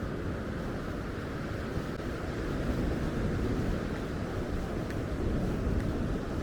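Steady low rumble of wind on the microphone, over the wash of sea waves on the beach.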